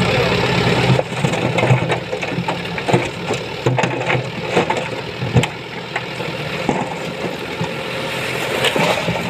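Diesel dump truck's engine running to drive the hydraulic tipper while a load of sand and gravel pours out of the raised steel bed, with many short knocks of stones tumbling out and striking the bed and swinging tailgate.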